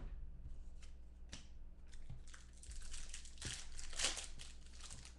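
Foil wrapper of a trading-card pack being torn open and crinkled by hand, the loudest tearing about four seconds in.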